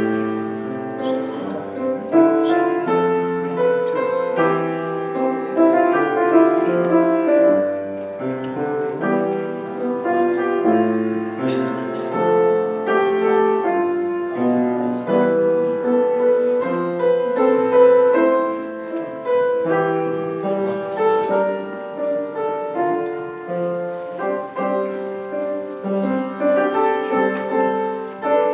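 Piano music playing steadily, with chords and a melody that move on continuously.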